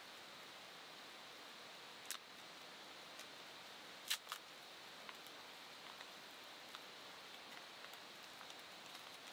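Faint steady hiss broken by a few sharp clicks and small ticks; the loudest is a quick pair of clicks about four seconds in.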